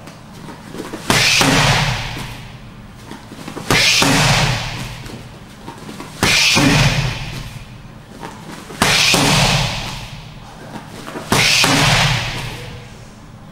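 Boxing gloves smacking into curved focus mitts as left-right punch combinations land: five sharp hits, about every two and a half seconds.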